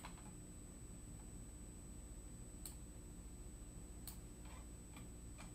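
Near silence: quiet room tone with a faint hum and a thin high whine, and three faint computer mouse clicks spaced about a second or so apart in the second half.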